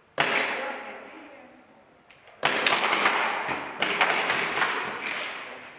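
Sharp bangs ringing out with a long echo, as in a large hard-walled room: one about a fifth of a second in, then a quick cluster of several more from about two and a half seconds in.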